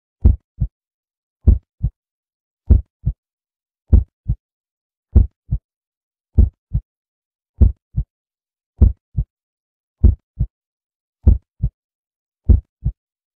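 Heartbeat sound effect: slow, steady lub-dub double thumps, a strong beat followed by a weaker one, about one pair every 1.2 seconds with silence between.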